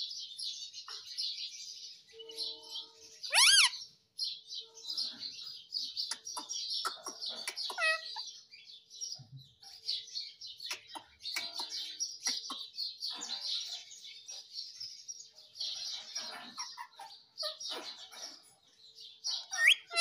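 Indian ringneck parakeet calling: a steady run of quick high chirps and chatter, with one loud whistle that sweeps up and down about three and a half seconds in.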